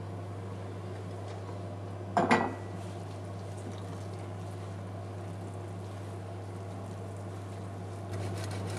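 A steady low hum with quiet stirring of risotto in a stainless-steel pot. About two seconds in, a single sharp clink of a utensil against the pot rings briefly.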